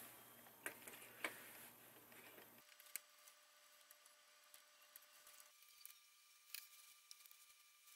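Near silence with a few faint clicks and taps from handling small plastic circuit boards and their power cable, the sharpest in the first three seconds and softer scattered ticks after. A low background hum drops out about a third of the way in.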